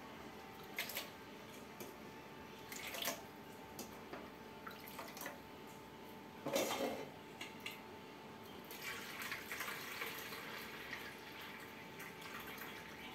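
Quiet kitchen handling sounds: a few soft knocks and clinks of bowls and utensils, the loudest about six and a half seconds in, with faint water sounds.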